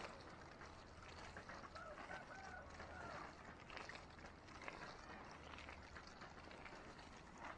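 Water sprinkling from a perforated tin can onto freshly tilled soil, a faint steady hiss and patter, wetting the seedbed before the seed is sown.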